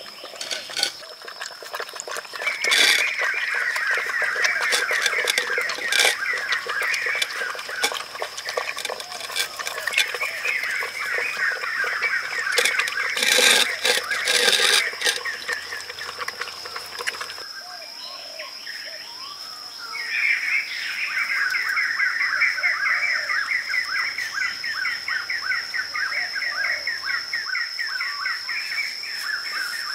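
Animal calls: fast runs of high chirps in two long stretches, broken by a short pause a little past halfway, over a steady high-pitched tone. A few sharp clicks fall in the middle.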